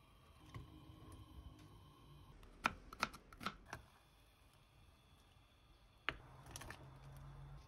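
Stainless-steel mesh infuser ball being handled: a quick run of sharp metal clicks about two and a half to four seconds in, then one more click near six seconds followed by a low steady hum.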